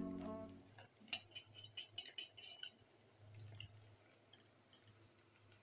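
Faint run of light metallic clicks and taps, about ten in a second and a half starting about a second in, from a perforated metal skimmer knocking against the frying pot and aluminium colander while scooping out fried falafel.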